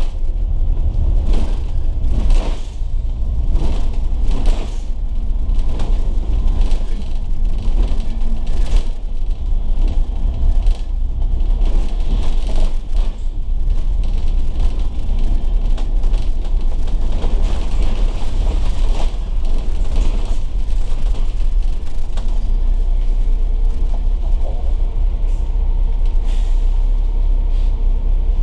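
Volvo B9TL double-decker bus under way, its diesel straight-six engine and the road making a steady heavy rumble. Frequent short rattles and knocks come from the bus body.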